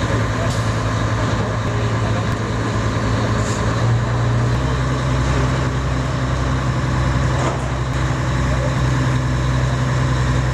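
An engine running steadily at constant speed, giving an even low hum.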